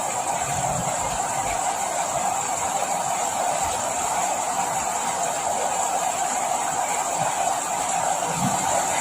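Steady rain: an even, unbroken hiss of falling rain at a constant level.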